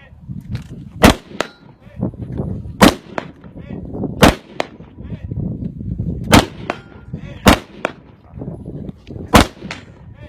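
Gunfire at a shooting range: six loud, sharp shots one to two seconds apart, with fainter shots from farther off in between.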